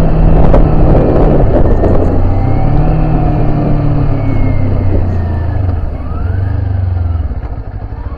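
Kawasaki Z400 parallel-twin engine running on the move. Its pitch dips early, climbs about two seconds in, then falls and levels off as the bike slows.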